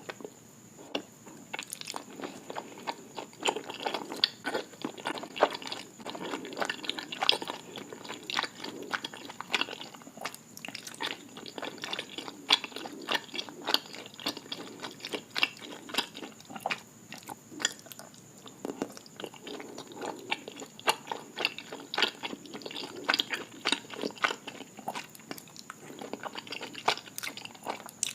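Close-up chewing and biting of crunchy food, a continuous run of sharp crunches and crackles.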